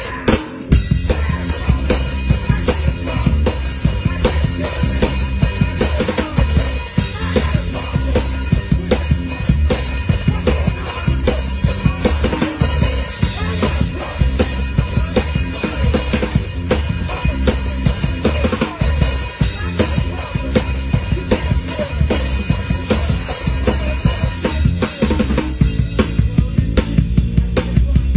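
Rock band playing live, heard close to the drum kit: dense kick, snare and cymbal hits over a steady low bass line, with a brief gap just after the start before the full band comes back in.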